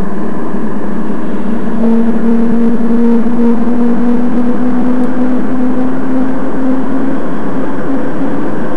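Rotax 503 two-cylinder two-stroke engine of an ultralight trike running at low power on the ground, heard as a loud steady drone; a steady engine tone comes up about two seconds in and holds.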